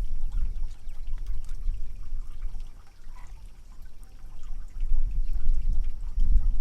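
Calves drinking from a water trough: wet slurping and sucking with water trickling and splashing, over a low rumble. It quietens briefly about halfway through and picks up again near the end.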